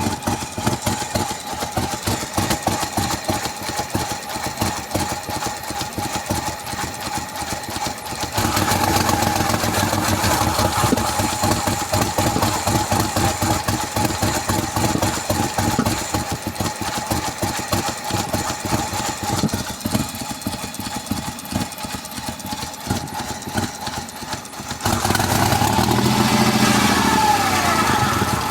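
V6 engine of a 2003 Mercedes-Benz W211 E240 idling roughly, from random multiple-cylinder misfires. It gets louder about a third of the way in and again near the end.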